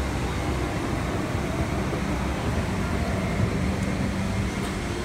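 Steady hum and rush of a Boeing 777-300's cabin air ventilation while the airliner is parked at the gate for boarding.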